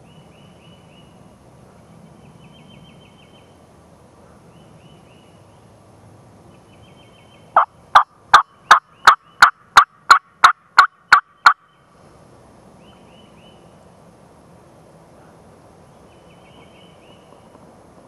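A turkey call run in a series of about a dozen loud, evenly spaced yelps, roughly three a second, lasting about four seconds and starting about halfway through.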